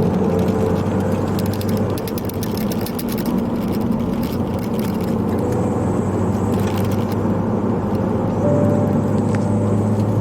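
Turbocharged Ford Focus ST engine running steadily under way with road noise. Bursts of metallic rattling come from loose camera-strap clips shaking on a bouncing suction-cup mount, about two and a half seconds in and again around the seven-second mark.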